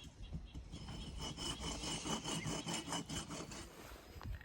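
Rhythmic rasping strokes, several a second, like wood being cut or scraped, with a faint high tone through the middle.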